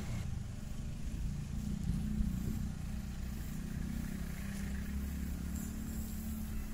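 Steady low engine drone over a rumble, its pitch holding with slight wavering and growing a little stronger about a second and a half in.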